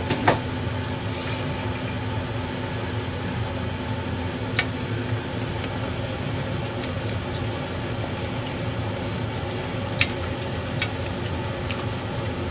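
Steady low hum around a gas stove, with a few sharp clicks of cooking chopsticks knocking against a hammered metal saucepan as vegetables simmering in miso broth are stirred.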